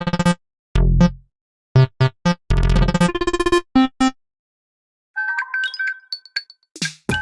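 Built-in electronic tones of a Nokia T26 played one after another. First a short synthesized melody of quick notes over bass, then, after about a second's pause, a different, brighter chiming tone begins.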